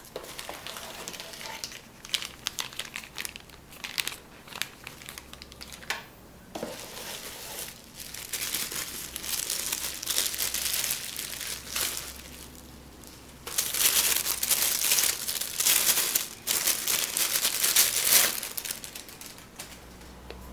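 Packaging of a boxed camera being unpacked by hand: irregular crinkling and rustling of wrapping, with a few short knocks in the first six seconds. The crinkling is loudest from about eight to eleven seconds in and again from about thirteen to eighteen seconds in.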